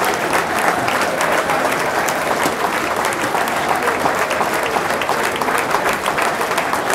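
Football stadium crowd applauding, a dense, steady mass of hand claps with a few voices mixed in.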